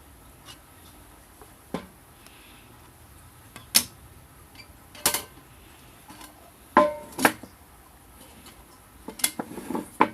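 Metal parts of a homemade wood stove knocking and clinking against each other as they are handled, about half a dozen sharp clanks, a couple of them ringing briefly, with a quick cluster of clinks near the end.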